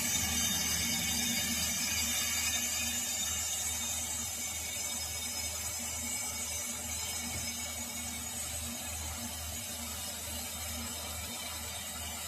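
A machine or power tool running steadily, with a high hiss over a low hum, slowly getting a little quieter.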